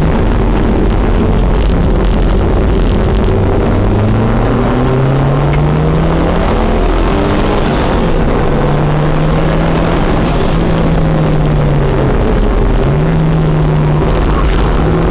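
A car's engine heard from inside the cabin while it is driven hard on a race track. The revs climb over the first several seconds and hold high, drop sharply about twelve seconds in and climb again, over loud road and wind noise.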